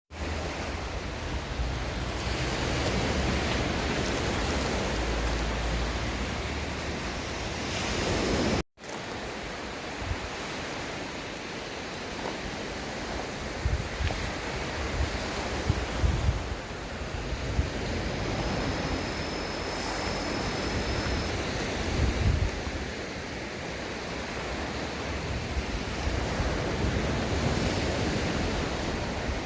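Sea waves breaking and washing up on a sandy beach as a steady surging wash, with wind buffeting the microphone in low gusts. The sound drops out for an instant about nine seconds in.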